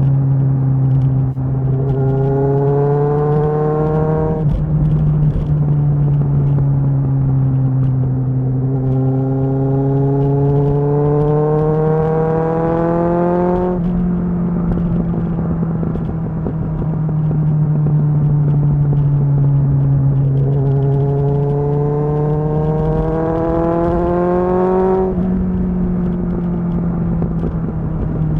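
Kawasaki ZXR's inline-four engine running on the move, with three throttle pulls where the engine pitch climbs for a few seconds and then drops off suddenly as the throttle closes or the next gear goes in.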